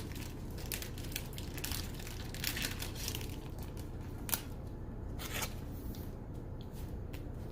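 Pokémon trading cards and booster-pack wrappers being handled: scattered rustles, crinkles and small clicks over a steady low hum.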